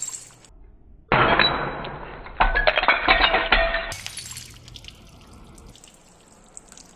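Glass bottles breaking: a sudden crash about a second in and another about two and a half seconds in, each followed by shards clinking and jingling, then fading to scattered light clinks.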